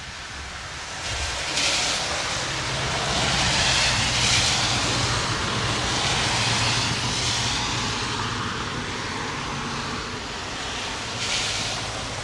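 Car passing on a rain-soaked road, its tyres hissing through the water over steady rain. The hiss swells from about a second in, is loudest a few seconds in and eases slowly, with a low engine hum beneath it and another short swell of tyre hiss near the end.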